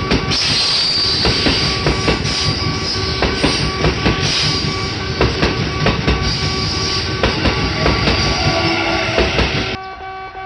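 A Kintetsu Nagoya Line train passing over a level crossing, its wheels clacking rapidly over the rail joints, while the crossing's warning bell keeps ringing. The train noise cuts off abruptly near the end, leaving the bell.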